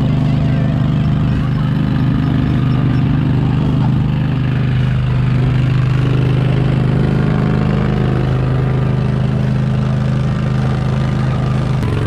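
Utility vehicle's engine running steadily as it tows a train of barrel carts at a slow, even pace, a constant low hum with no change in speed.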